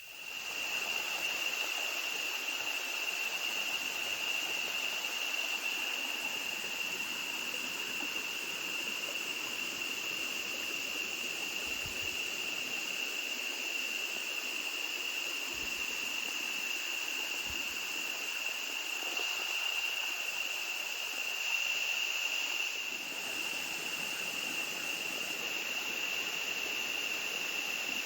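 Steady rush of water from a small waterfall, coming up sharply about half a second in, with a continuous high-pitched insect drone over it.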